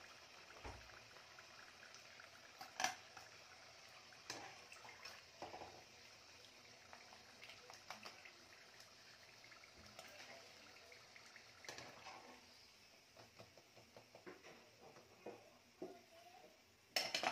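Faint sounds of fried samosas being lifted from hot oil with a wire-mesh skimmer: a low hiss of the oil and drips, with scattered soft taps and clicks and a short louder knock near the end.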